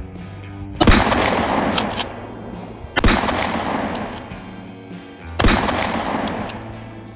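A shoulder-fired long gun fired three times, about two and a half seconds apart, each shot trailing a long fading echo. Short sharp clicks follow the first and last shots.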